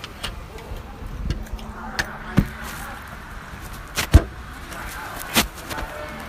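Tableware knocking and clinking during a meal: several sharp knocks, the loudest about four seconds in, over a faint background murmur.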